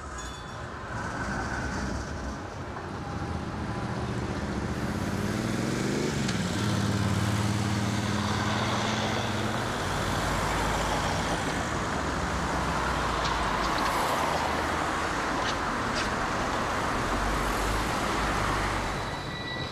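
City street traffic: cars passing with engine and tyre noise. One vehicle's engine rises in pitch as it accelerates about five seconds in and then holds steady, and a louder swell of tyre noise follows in the second half.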